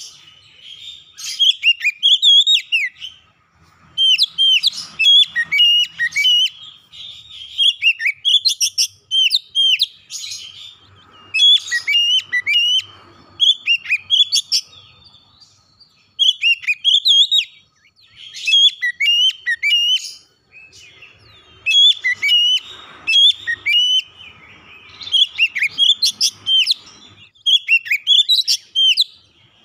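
Oriental magpie-robin singing: repeated phrases of rich, sweeping whistled notes, each a second or two long, with short pauses between them.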